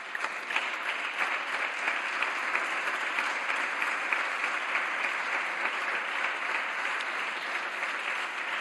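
Applause from the deputies in a parliament chamber: many hands clapping together in a steady, sustained ovation that breaks out all at once.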